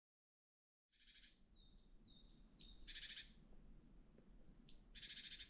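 Small songbird singing: a string of short, high, down-slurred chirps broken by two louder buzzy trills, starting about a second in.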